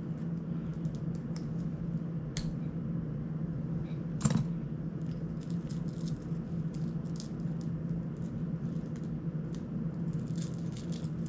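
Small plastic clicks and rattles from handling a GEPRC CineLog 35 cinewhoop drone and fitting an action camera onto its mount, with one sharper click about four seconds in, over a steady low hum.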